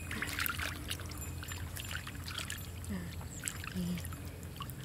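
Shallow muddy pond water sloshing and trickling in soft, irregular splashes as hands grope through the mud and feet wade.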